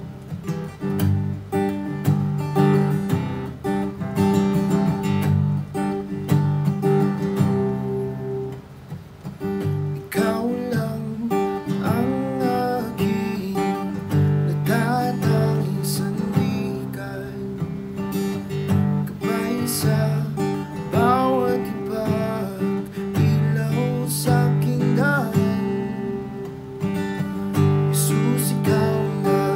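Acoustic guitar strumming a slow worship song. A voice comes in about ten seconds in, singing Tagalog lyrics over the guitar.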